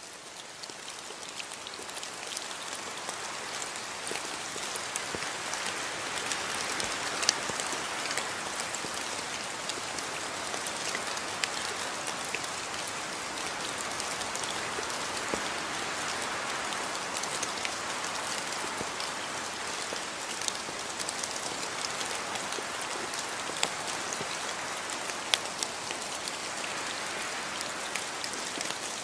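Steady rain falling, with many scattered sharp drop ticks close by over the even hiss; it swells in over the first few seconds and then holds steady.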